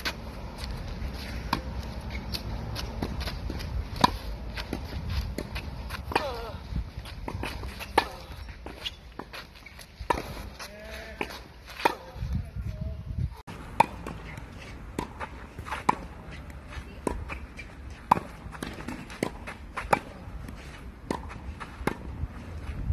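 Tennis ball struck with a racket again and again in a rally on a clay court: sharp pops a second or two apart, with softer ball bounces and footsteps on the clay in between, over a low rumble.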